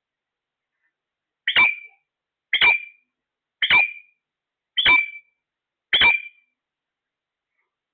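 A parrot giving five short, sharp squawks about a second apart, evenly spaced.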